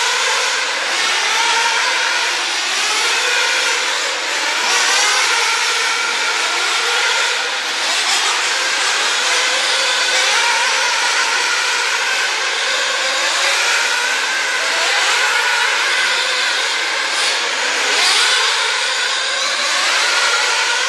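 Several radio-controlled off-road racing cars running together, their motors' high-pitched whine rising and falling over and over as they accelerate and brake around the track.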